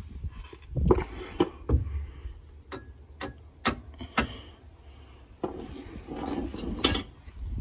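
A wooden-handled hammer knocking on the rear shock absorber's lower mounting bolt of a 2012 Ford Escape to drive off the stuck shock. Sharp single knocks come about half a second apart through the first four and a half seconds, then one more near the end.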